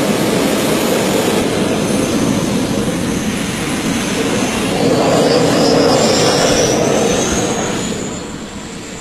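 Helicopter turbine engine of a motorcycle running with a steady rushing roar and a high whine. About five seconds in the whine climbs in pitch and the sound grows louder as the bike pulls away, then it falls off near the end.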